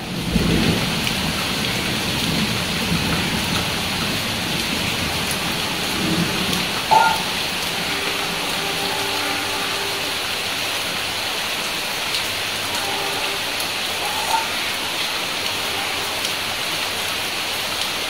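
Steady rain falling on a paved courtyard and wet ground, an even hiss. A brief, louder sound stands out about seven seconds in, and a smaller one near fourteen seconds.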